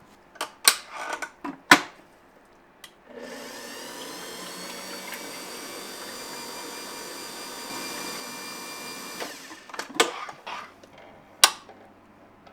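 A small electric motor runs at a steady speed for about six seconds, then stops suddenly. Before and after it there are a few sharp clattering knocks, like utensils or trays handled.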